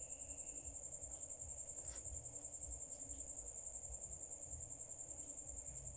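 An insect trilling steadily: a high-pitched, fast, even pulse of many chirps a second, over a faint low rumble.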